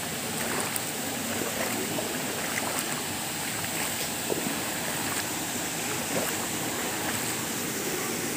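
Steady rush of running water from a small waterfall and the shallow stream flowing over gravel below it, with a few faint trickles and ticks.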